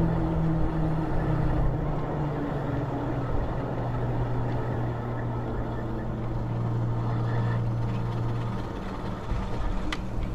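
Ariel Rider Grizzly e-bike riding along on its rear motor: wind rumble on the microphone with a steady low hum from the motor and tyres, which stops about nine seconds in. A single sharp click comes near the end.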